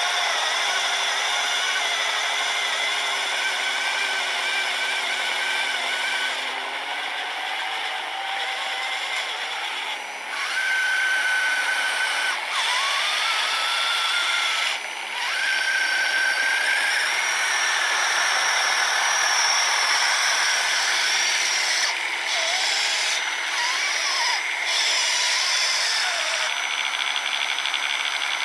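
Electric motors of an RC snowblower and RC truck running with a steady high whine. Several tones glide up and down briefly now and then as the machine works through snow.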